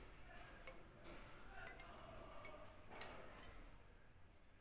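Faint, scattered metallic ticks and taps of a stainless-steel saucepan and a fine mesh strainer knocking together as flaxseed gel is poured and strained into a bowl.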